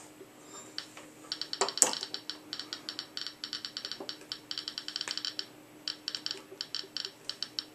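CDV-700 Geiger counter clicking irregularly, several clicks a second, as its probe, beta shield closed, picks up a radioactive check source. There is a single knock from the probe being handled just before two seconds in.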